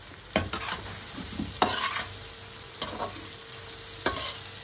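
Metal spoon stirring a bitter gourd and onion stir-fry in a frying pan, scraping and knocking the pan four times about a second apart, over a steady sizzle of frying.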